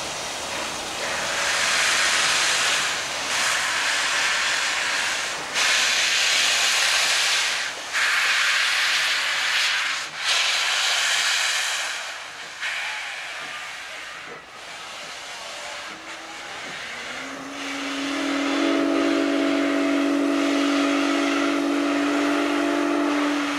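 Steam locomotive letting off steam in five long hissing bursts, each about two seconds. Then its whistle sounds one long steady blast of several tones together, starting a few seconds after the hissing stops.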